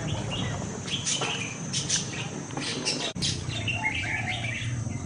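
Small birds chirping: many short, overlapping chirps, some falling in pitch, over a low steady background noise.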